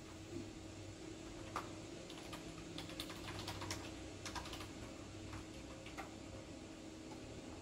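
Typing on a computer keyboard: irregular, soft keystroke clicks, busiest in the middle, over a faint steady hum.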